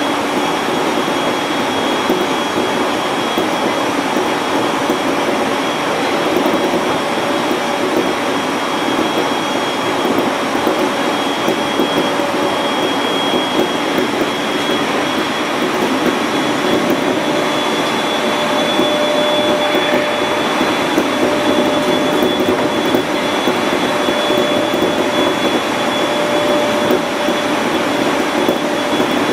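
701-series electric train running steadily at speed: continuous rolling and running noise with a faint steady high whine.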